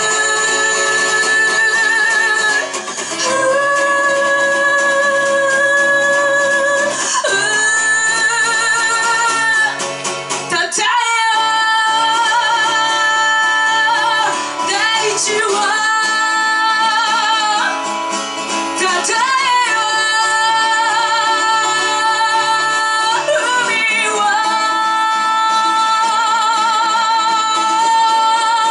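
A rock band playing live: a singer holding long notes with a wavering vibrato over guitar, phrase after phrase, with short breaks between them.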